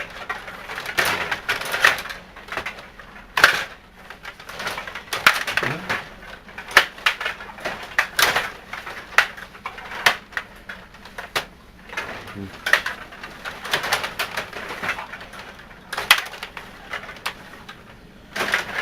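Irregular sharp clacks and knocks of hockey play, stick and puck striking, sometimes several in quick succession.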